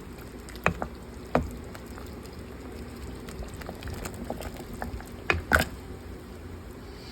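A pot of thick gumbo simmering, its bubbles popping irregularly over a low steady bubbling, with a few louder pops about a second in and again about five seconds in.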